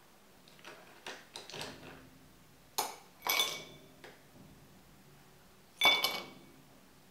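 Ice cubes dropped into an empty glass tumbler, clinking against the glass with a short ringing tone. A few light taps come first, then two sharp clinks about halfway through and the loudest one near the end.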